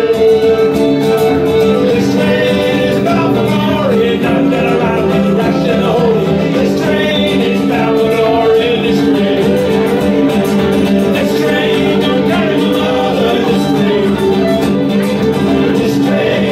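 Live folk band playing an instrumental break: harmonica lead over fiddle and acoustic guitar.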